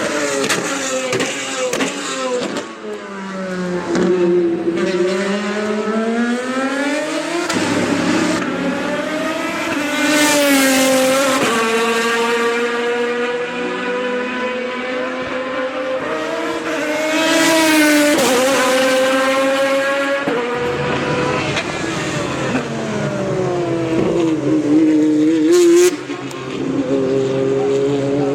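V12 of a Lamborghini Murciélago R-SV GT1 race car at racing speed. The engine pitch climbs under throttle and drops suddenly at each upshift, then glides down as it brakes and shifts down. There is a short sharp crack near the end.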